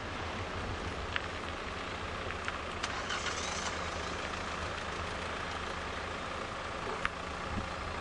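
Steady vehicle and road-traffic noise in a traffic jam: a continuous low rumble with a few short clicks.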